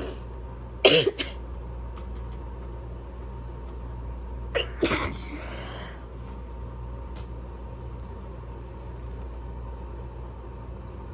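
A person with a cold sneezing twice, about a second in and again about four and a half seconds in. The second sneeze is a quick double burst with a falling voiced tail.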